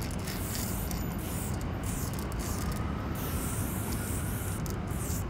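Aerosol spray-paint cans hissing in repeated short bursts over a steady low rumble.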